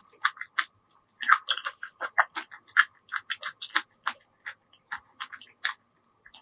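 Close-miked chewing: a fast, irregular run of short wet clicks and smacks from a mouth eating food, pausing briefly about a second in and again near the end.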